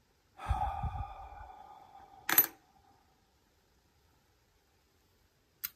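Small metal pieces clink together with a ringing tone that fades over about two seconds, then a single loud, sharp metallic click, and a faint click near the end, from handling a key and lock picks at a Miwa U9 lever lock.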